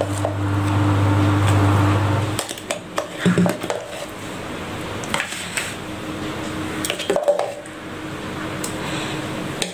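Metal spoon scraping and tapping inside a plastic mixer-grinder jar as thick blended watermelon mix is scooped out, a scatter of separate clicks and scrapes. A steady low hum runs for the first two seconds or so and stops abruptly.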